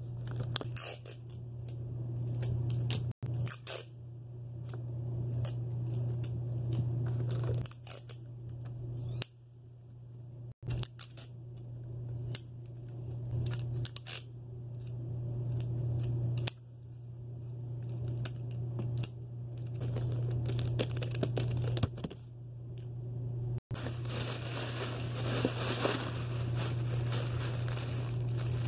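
Gift-wrapping handling sounds: wrapping paper rustling and sticky tape being pulled and torn, in short scratchy bursts over a steady low hum. The sound cuts out abruptly three times, and near the end red tissue paper crinkles continuously as it is stuffed into a gift bag.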